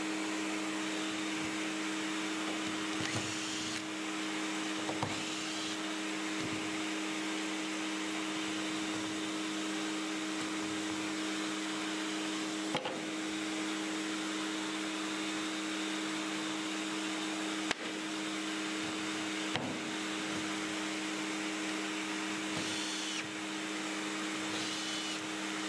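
Dust extractor running steadily through its hose, a constant motor drone with airflow hiss, with a few light knocks of wood pieces being handled.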